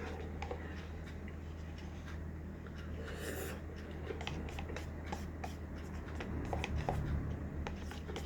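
Scattered small clicks and rubbing from hands and utensils handling food, over a steady low hum. The clicks come thicker in the second half, with the loudest patch about seven seconds in.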